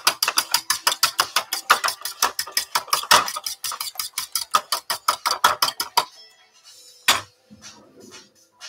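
A fork beating a raw egg in a bowl: a fast, even run of clicking strokes, about eight a second, that stops about six seconds in. About a second later comes one sharp knock.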